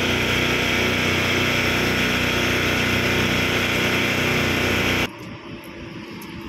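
A steady engine hum running close by that cuts off suddenly about five seconds in, leaving a quieter city background.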